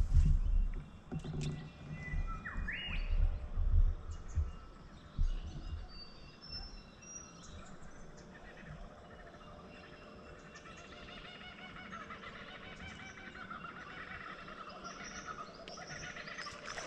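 Several wild birds calling and singing, with short whistled and warbled notes that get busier after about six seconds. Low knocks and thumps sound during the first few seconds.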